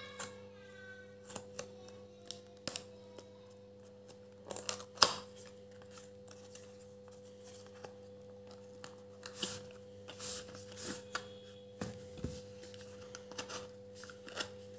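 A small cardboard retail box being unsealed and opened by hand: a paper seal tab peeled off, then scattered rustles, scrapes and light clicks of card as the inner tray slides out, the sharpest click about five seconds in.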